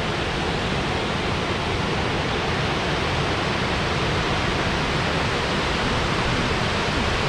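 Steady rush of a waterfall: an even roar of falling water that does not change.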